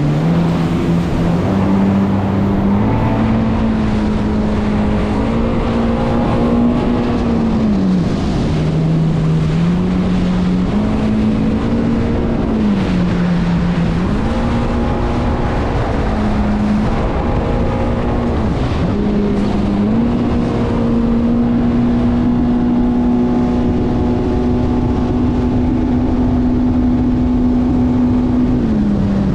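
Motorboat engine running under way, its pitch sagging and climbing back several times as the throttle is eased and opened, then holding steady for most of the last third, over a steady rushing noise.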